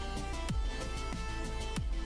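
Instrumental background music: held notes over a low, falling thump about once every second and a quarter.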